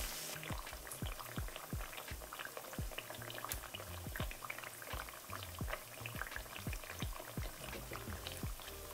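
Cornstarch-dredged soy-protein pieces shallow-frying in about an inch of hot oil: steady bubbling with dense, irregular crackles and pops.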